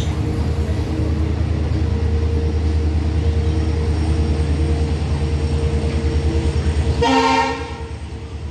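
Loaded BOXNHL open wagons of a goods train rolling past, a steady heavy rumble with a fast rhythmic clatter of the wheels on the rails. About seven seconds in, a short train horn toot sounds for about half a second.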